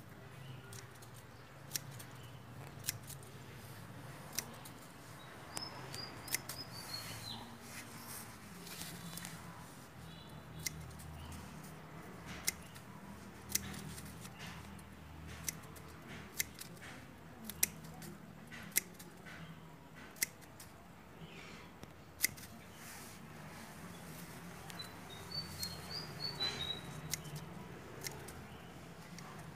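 Pruning shears snipping the leaf axils and side leaves off chrysanthemum stems: sharp, irregular snips, roughly one a second.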